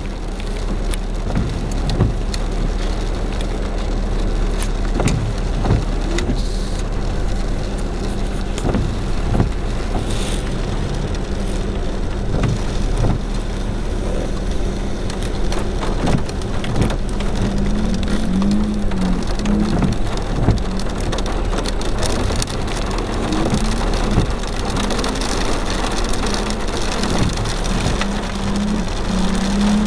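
Heavy rain drumming on a car's roof and windscreen, heard from inside the car, with many sharp drop ticks. In the second half a car engine revs up and down beneath the rain.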